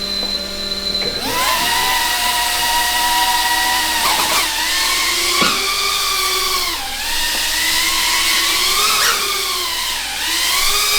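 FPV drone's electric motors and propellers whining as they spin up about a second in, the pitch dropping and rising again several times as the throttle changes in flight.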